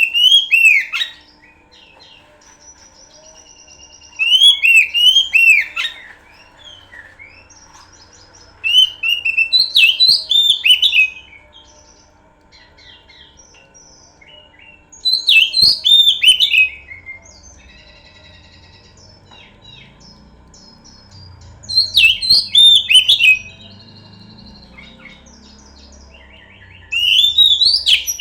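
Oriental magpie-robin (kacer) singing loud, varied whistled phrases in short bursts about every five to six seconds, with softer chirps and twitters between the bursts.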